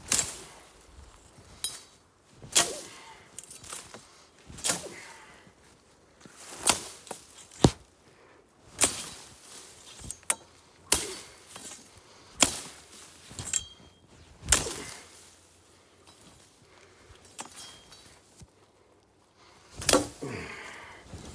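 Sneezeweed stalks being chopped with a blade: about ten sharp chopping strikes, roughly one every one to two seconds, then a pause of a few seconds before a last strike with a rustle near the end.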